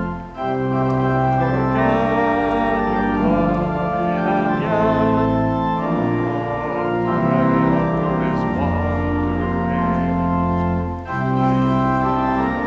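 Organ playing a hymn in long held chords, the bass note moving every second or two, with brief pauses between phrases just after the start and near the end.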